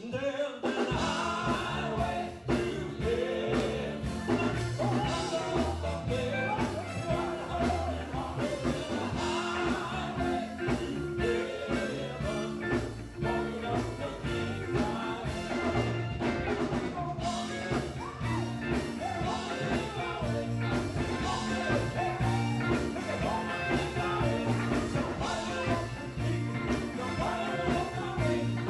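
Live gospel music from a male vocal group singing with a band: lead and backing voices over electric guitar, bass and drums, with a steady beat.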